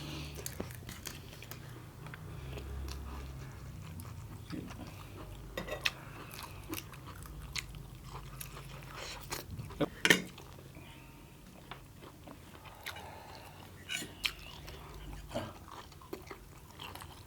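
Close-miked biting and chewing on king crab legs: scattered sharp cracks of shell, the loudest about ten seconds in, between quieter chewing.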